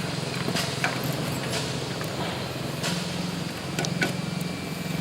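GY-200-1A drilling rig's engine running steadily, with a few short sharp metal taps over it.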